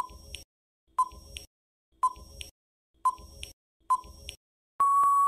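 Quiz countdown-timer sound effect: five short beeps one second apart as the count runs down, then a longer steady beep near the end as the countdown runs out.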